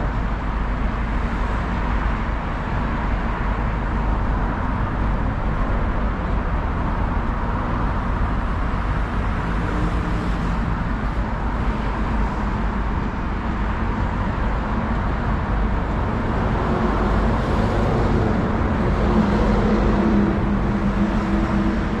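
Steady road traffic noise from a busy street, with a low rumble throughout. From about two-thirds of the way in, a vehicle engine's low hum comes in and grows louder toward the end.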